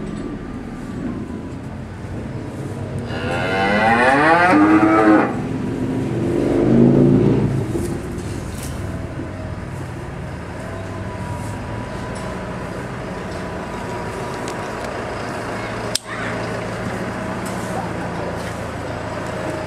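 A cow mooing twice: one long call about three seconds in, and straight after it a second, lower call, over a steady faint mechanical hum.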